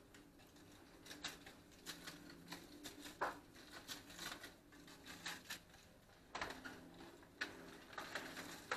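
Faint, irregular light ticks and rustles of seasoning being shaken from a spice shaker onto a leg of springbok in a foil-lined dish while the meat is turned and rubbed, over a faint steady hum.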